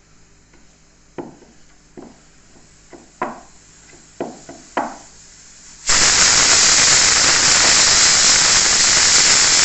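A few light knocks, then about six seconds in a pressure cooker's whistle lifts and steam hisses out loudly and steadily: the pressure has built up in the cooker of dal and it is venting.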